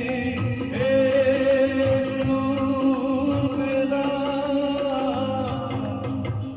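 Song accompaniment with a steady beat. A long, wavering melody note is held from about a second in until near the end.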